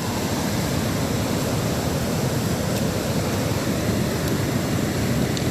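Steady rushing of the Upper Salt River's flowing water, an even, unbroken noise.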